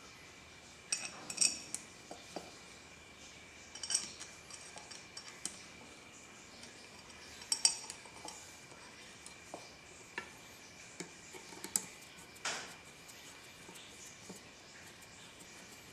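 Small steel screws clinking against each other in a hand and against a steel lathe chuck as they are set into its holes: scattered sharp metallic clinks every second or few, with a faint steady high whine underneath.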